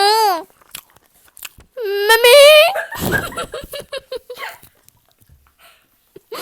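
Close-miked eating sounds: chewing, crunching and sharp little clicks of mouth and utensils. Two short high-pitched wordless vocal sounds from a child come at the start and around two seconds in.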